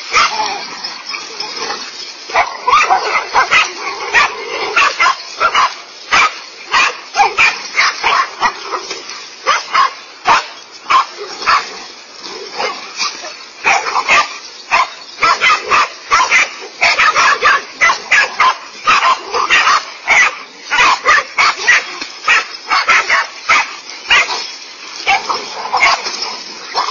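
A pack of dogs barking hard and fast at a large snake they are attacking, several dogs at once, the barks overlapping with hardly a break.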